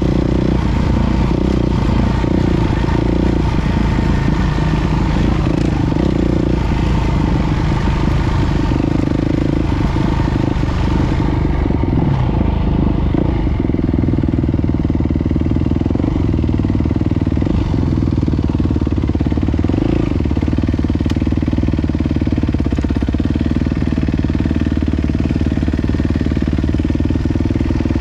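Yamaha WR450F single-cylinder four-stroke dirt bike engine running under way on a dirt trail, heard from on the bike, its note rising and falling with the throttle over a steady rush of wind. The rushing noise eases about halfway through.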